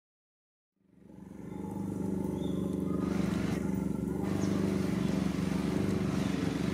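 A motor engine running steadily in the background, fading in about a second in.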